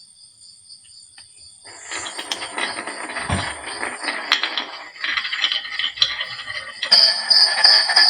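Glass marbles rolling and clattering down a wooden marble-run slope, a dense, irregular rattle full of small clicks that starts about two seconds in. A faint, steady, cricket-like chirping comes before it, and music comes in near the end.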